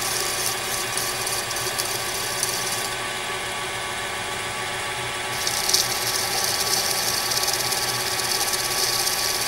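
Lathe running with a steady hum while a hand-held diamond-coated disc grinds the face of a spinning tungsten carbide cutter with a high hiss, sharpening it. The grinding hiss stops for about two seconds when the disc is lifted off about three seconds in, then resumes.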